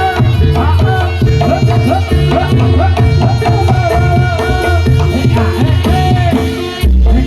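Loud music with hand drums and a heavy bass, and a bending melodic line above. Near the end the melody briefly drops out under a strong bass hit.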